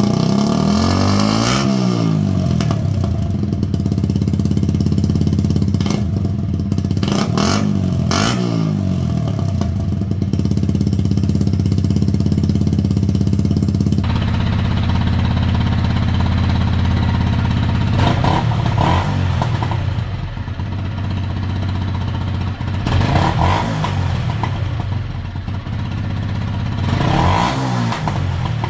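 Yamaha YZF-R125's 125 cc single-cylinder four-stroke engine idling through an aftermarket exhaust, with the throttle blipped several times so the revs rise and fall. About halfway the exhaust note changes abruptly to a different pipe, which idles and is blipped again.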